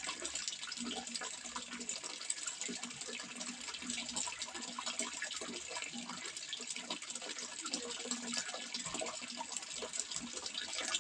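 Running water splashing and trickling steadily, with small gurgles throughout.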